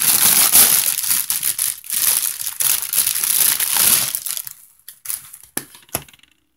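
Plastic packaging, cellophane and bubble wrap, crinkling and rustling loudly as it is handled and pulled away for about four and a half seconds, followed by a few light, sharp taps near the end.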